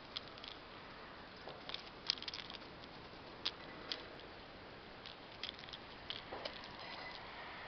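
Light rustling and crackling in grass and dry leaves: a scatter of short, sharp clicks over a faint steady hiss.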